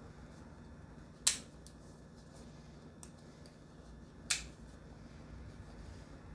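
Two sharp clicks, about three seconds apart, with a few faint ticks between, from a folding pocket knife being worked in the hand.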